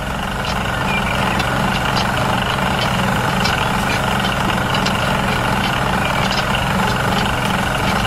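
A steady engine-like running drone, even in pitch throughout, with faint light ticks over it, accompanying a miniature toy tractor hauling a small wooden trailer.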